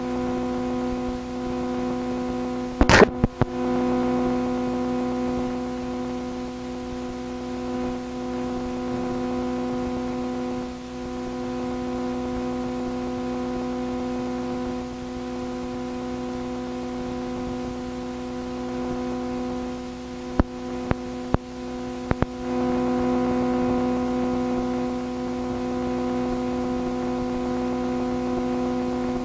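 Steady electrical hum from a cut-out microphone: a low buzz with a stack of overtones in place of the room sound. There is a short crackle about three seconds in and a few clicks about two thirds of the way through.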